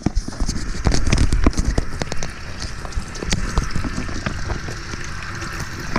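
Tap water running and splashing into a utility sink, used to heat the icemaker's ice-cube grid, with scattered knocks and clatter from handling the grid.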